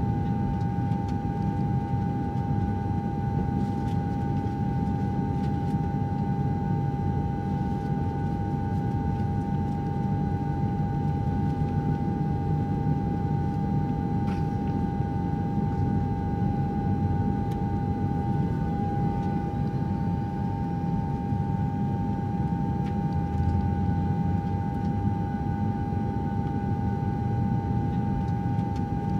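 Airbus A320 cabin noise on approach: a steady low roar of the jet engines and airflow, with a constant whine riding above it.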